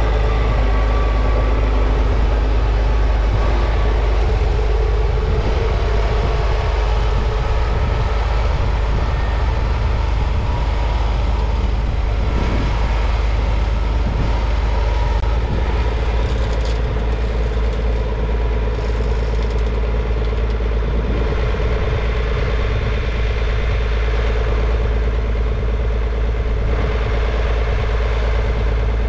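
A McCormick MTX150 tractor's 6.8-litre six-cylinder diesel engine running steadily while its McConnel hedge cutter works along a hedge, a constant machine drone with a steady tone throughout.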